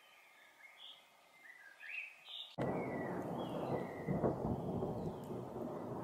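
A chaffinch gives short, scattered chirps. About two and a half seconds in, a rumble of thunder cuts in abruptly and goes on, much louder than the bird, swelling briefly a little past the middle, while a few faint chirps carry on over it.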